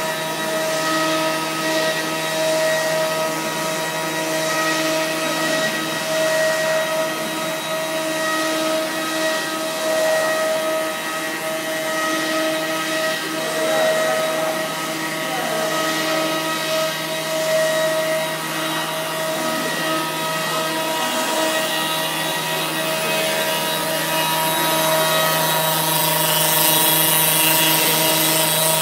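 HSD spindle of a 5-axis CNC wood router running with a steady whine while its bit mills a wooden blank, a hiss of cutting over the spindle tone. The cutting noise gets louder and brighter near the end.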